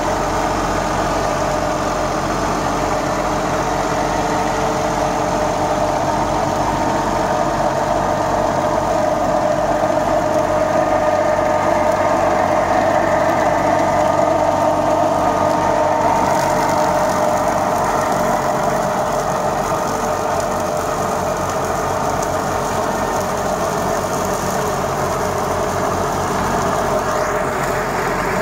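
Holder A55 articulated tractor's diesel engine running steadily while it drives a Röll Compact double rotary mulcher through grass, a constant drone, a little louder in the middle.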